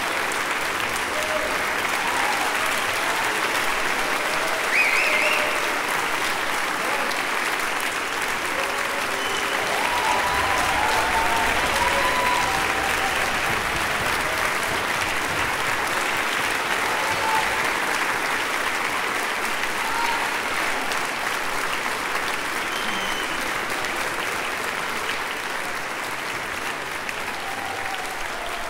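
Large concert-hall audience applauding steadily after a symphony, with a few shouted cheers rising above the clapping. The applause eases off a little near the end.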